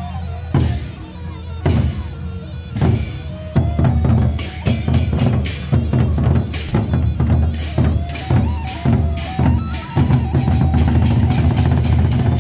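Sasak gendang beleq ensemble playing: large barrel drums beaten with sticks, with cymbal crashes. The strokes come about once a second at first, then pick up into a fast, dense beat from about four seconds in.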